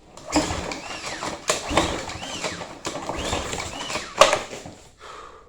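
Small pressure washer engine being pull-started with its recoil starter: several hard pulls about a second apart, each with a brief rising-and-falling rope whir, the last one the loudest. The engine does not catch.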